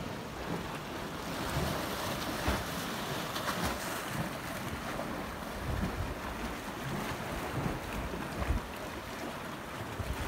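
Wind buffeting the microphone in irregular low gusts over a steady wash of small waves on the shore.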